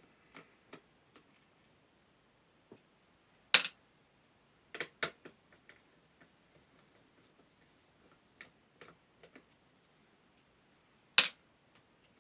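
Irregular clicks and light knocks of small fan parts and tools being handled during disassembly and cleaning. The two sharpest knocks come about three and a half seconds in and near the end, with a quick cluster of clicks around five seconds.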